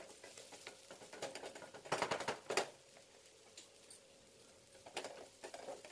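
A wooden spatula stirring and scraping chopped onion and bitter gourd peels in a steel kadhai, heard as faint scrapes and light taps: a short burst about two seconds in and a few more near the end, almost nothing in between.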